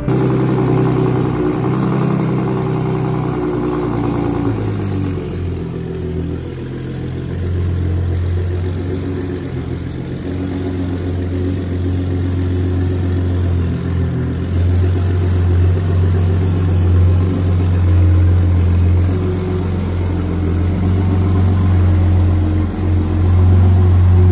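Engine of a Shelby-modified Ford F-150 Raptor pickup running at idle, a deep steady drone through its exhaust. The sound is busier for the first four seconds or so, then settles into an even hum.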